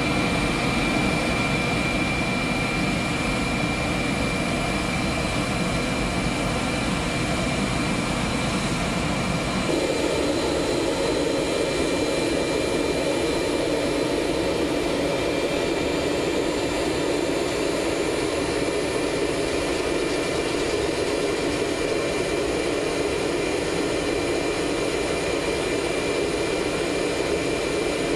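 Steady jet turbine noise with a constant high-pitched whine. About ten seconds in the sound shifts abruptly, the deep rumble giving way to a fuller mid-pitched noise.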